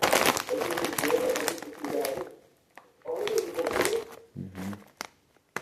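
Plastic chip bag of Takis crinkling as it is handled, in a long bout and then a shorter one about three seconds in, followed by a few single clicks near the end.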